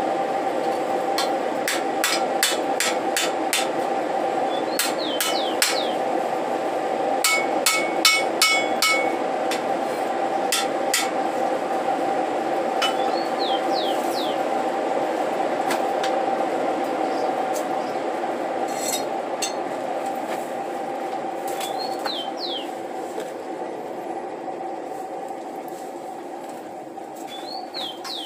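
Hand hammer striking a forge-heated steel planter part on an anvil block to bend and straighten it. There is a quick run of blows in the first several seconds and a few ringing metallic strikes about seven to nine seconds in, then only occasional blows, all over a steady hum.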